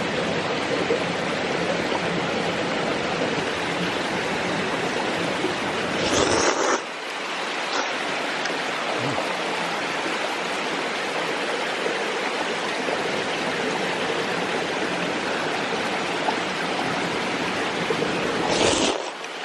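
Mountain stream running steadily. There is a brief louder swell about six seconds in, after which the deepest rumble thins out, and another swell near the end.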